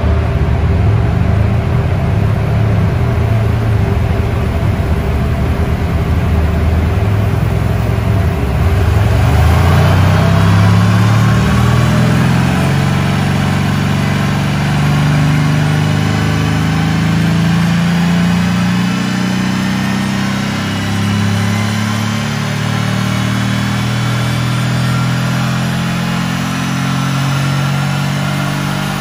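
Mercedes-AMG C63 S's 4.0-litre twin-turbo V8, with its petrol particulate filter removed and on stock software, running under load on a chassis dynamometer during a power run. It holds steady at first, then the revs climb slowly from about nine seconds in.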